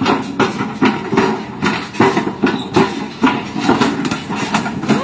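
Escalator running with its steps clanking in a steady rhythm, about two knocks a second, each with a short squeak.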